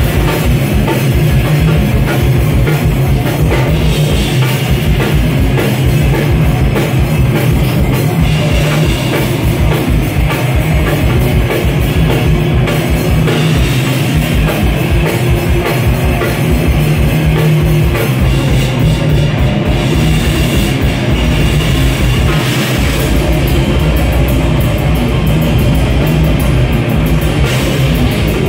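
A live heavy band playing loud and fast: a drum kit with rapid kick-drum strokes and a distorted electric guitar. About three-quarters of the way through, the rapid kick drumming stops and a held low note carries on.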